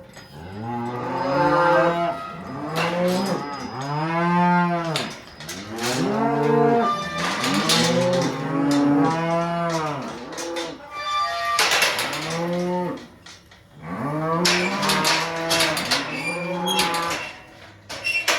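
Several beef cows mooing over and over in long, overlapping calls, bawling for their calves, which have been penned away from them. A few sharp clanks sound in the second half.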